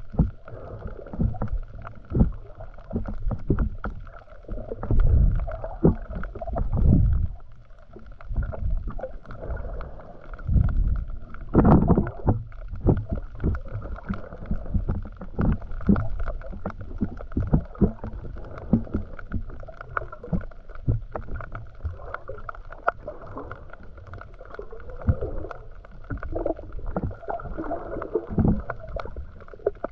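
Muffled underwater sound through a camera's waterproof housing: low rumbling water movement from swimming close to the lens, with many scattered small clicks and knocks and one louder thump about twelve seconds in.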